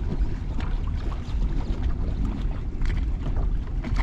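Wind buffeting the microphone on an open fishing boat: a steady, uneven low rumble, with a few faint clicks.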